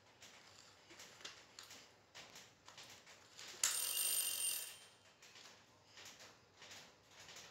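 Light plastic clicks and knocks as a baby monkey handles a plastic toy car. About three and a half seconds in, a short electronic ring of a few steady high tones sounds suddenly and fades after about a second; it is the loudest sound.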